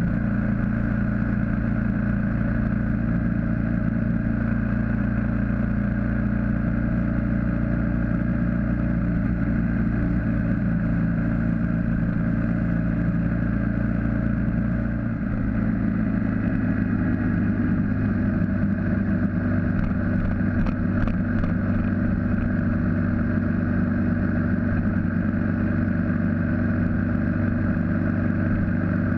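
BMW G650GS single-cylinder engine running steadily as the motorcycle cruises on the open road; the engine note changes about halfway through.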